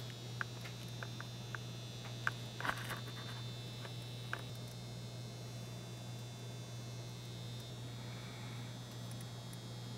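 Steady low electrical hum with a faint high whine above it, and a few small clicks in the first few seconds.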